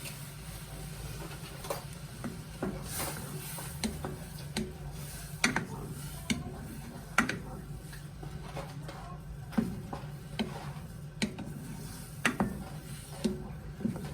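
A spoon stirring food in a pot, knocking and scraping against the pan at irregular intervals about once a second, over a steady low hum.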